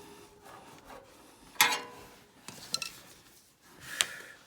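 Handling noise of tools and parts: rubbing and light clicks, with a sharp metallic clink that rings briefly about one and a half seconds in, and another click near the end.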